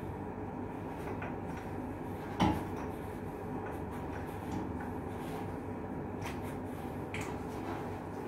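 Steady background hum with one sharp knock about two and a half seconds in and a few lighter clicks later, from hands and tools working on a flanged fire-main valve.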